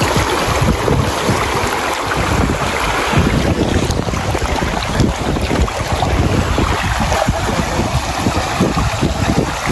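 Rushing river water with wind buffeting the microphone in steady, irregular low gusts.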